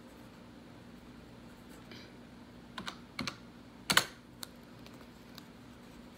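A few scattered light clicks and taps, the loudest about four seconds in, over a faint steady hum.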